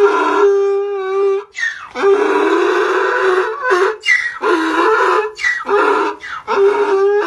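Donkey braying: a long run of hee-haws, alternating a steady pitched note with harsher, raspier notes in quick succession.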